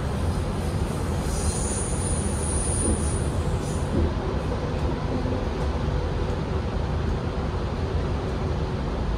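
Cabin noise of an electric passenger train running at speed: a steady rumble of wheels on track. A brief high-pitched wheel squeal comes in from about one and a half to three seconds in.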